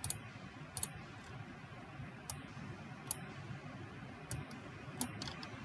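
Computer mouse clicking: about seven sharp, separate clicks spaced irregularly, roughly a second apart, over a faint steady hiss, as menu items are picked.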